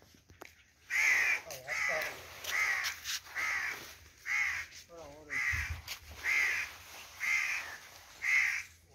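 A crow cawing over and over, about one harsh caw a second, with faint voices in between.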